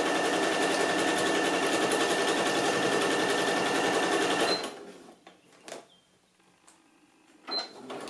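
Domestic electric sewing machine running a straight stitch at a steady speed, then stopping about halfway through. A few faint clicks follow, and the machine starts up again at the very end.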